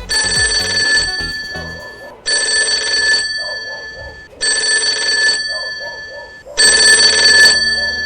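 A telephone-style bell ringing loudly in four rings, each about a second long, spaced about two seconds apart.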